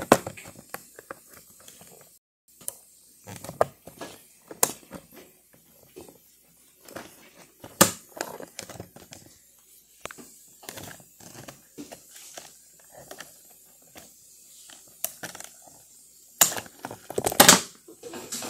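Toy packaging being opened by hand: irregular crackling, scraping and clicking of a cardboard box, its clear plastic insert and ties as the dinosaur figure is worked free, with louder crackles about eight seconds in and again near the end.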